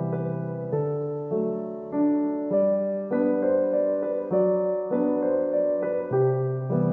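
Background music: a soft piano or electric-piano tune, with a new note or chord struck about every half second to a second.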